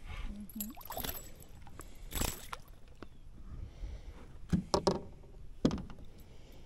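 A few sharp knocks and taps inside a small fishing boat as a just-caught small bass is handled, the loudest cluster about two-thirds of the way through.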